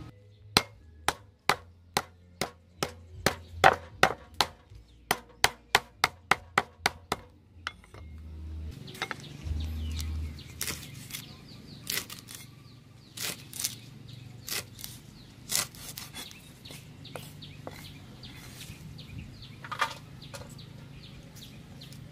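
Cleaver chopping on a wooden chopping board, first through green stalks then through leaves. For the first seven seconds or so it is a quick, regular run of sharp chops, about three a second and speeding up. After that the chopping is softer and more scattered, with a few louder knocks.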